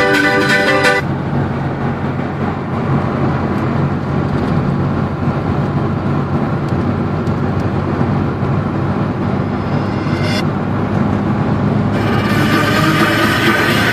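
Steady engine and road rumble inside a moving car. Music cuts off about a second in and comes back near the end.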